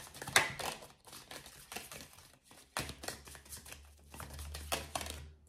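A deck of round oracle cards being shuffled by hand: quick runs of papery clicks and rustles that start and stop several times.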